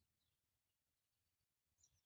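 Near silence, with a few faint, short, falling bird chirps; the brightest comes near the end.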